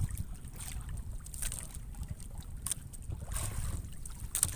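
Wind buffeting the microphone over water sloshing against a small outrigger boat, with a few faint knocks.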